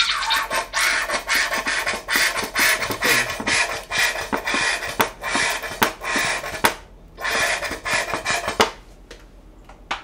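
Cooking oil crackling and sizzling in a hot frying pan. It breaks off briefly about seven seconds in, comes back, and stops about a second later.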